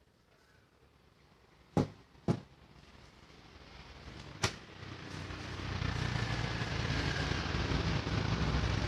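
Three sharp clicks or knocks, then a vehicle's engine and road noise rising over a few seconds to a steady rumble.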